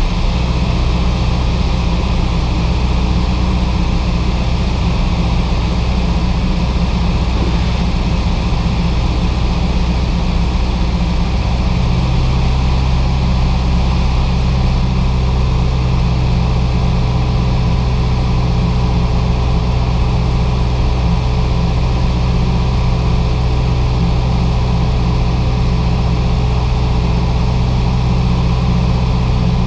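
Cessna 172's piston engine and propeller droning steadily, heard from inside the cabin, with a slight shift in tone about twelve seconds in.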